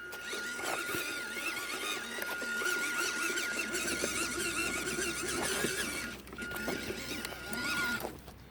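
WPL B36 RC truck's electric motor and gearbox running at low throttle: a steady high whine with light rattling, breaking off briefly about six seconds in and stopping near the end.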